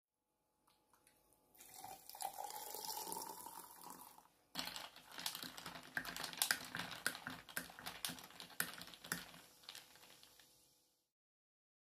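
Liquid poured steadily over ice into a glass mug for about three seconds. Then a wooden stirrer swirls the drink, and ice cubes knock and clink against the glass in quick irregular clicks for about six seconds, stopping shortly before the end.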